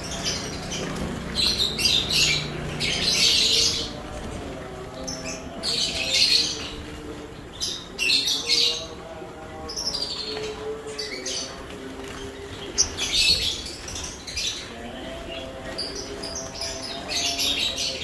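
A cage full of olive-backed sunbirds chirping: clusters of high, sharp calls come every second or two throughout, with one sharp loud call about two-thirds of the way in.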